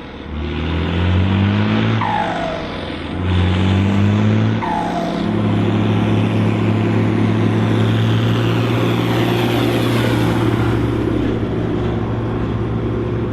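Volvo BM 810 Turbo tractor's turbocharged diesel engine pulling hard, its pitch rising twice and dropping back, each drop with a falling turbo whistle. It then settles to a steady note under load from about five seconds in.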